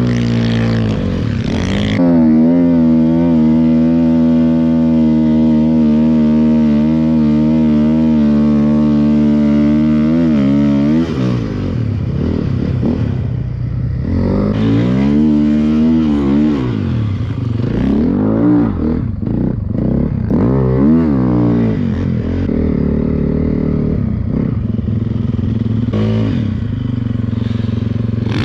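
Snowbike's 2014 Honda CRF450R single-cylinder four-stroke engine running under load. About two seconds in it climbs to a high rev and holds steady for about nine seconds, then drops and revs up and down several times as the throttle is worked.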